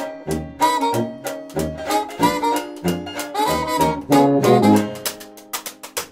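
Up-tempo jazz music with saxophone and brass over a steady beat, dying away near the end.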